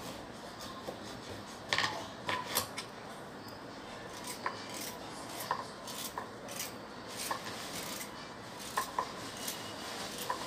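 Scattered light clicks and knocks of kitchen handling, about nine spread unevenly, over a steady hiss.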